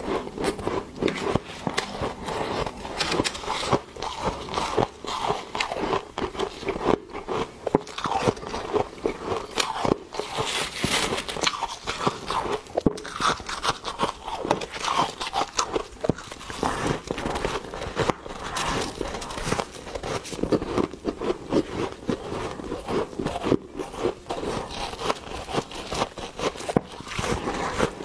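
Biting and chewing soft, powdery freezer frost, close up: a dense, continuous run of crunches.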